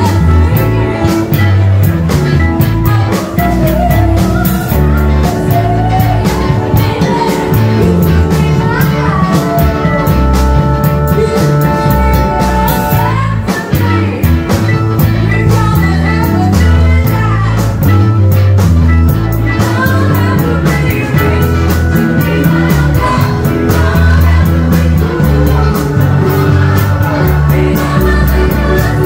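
Live band playing loud funk-rock with a lead singer over a pulsing bass line and drums, without a break.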